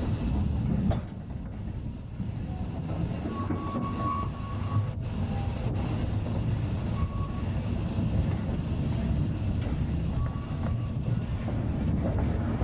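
East Broad Top narrow-gauge train pulled by steam locomotive No. 15, heard from a car just behind the tender while under way. A steady rumble of wheels on rail with an occasional rail-joint click.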